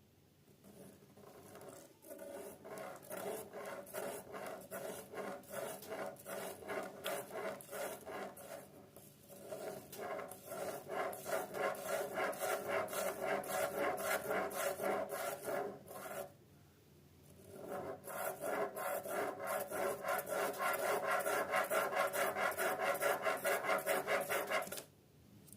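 A spirograph drawing: a pen rubbing on paper as the gear is worked round, in a quick, even rhythm of scraping strokes. It comes in three spells, with short pauses about nine and sixteen seconds in.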